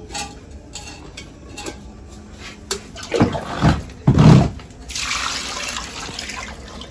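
Water poured from a steel bowl into a steel pot of whole fish, a steady splashing pour from about five seconds in. Before it come small clicks and a couple of dull bumps from hands moving the fish in the pot.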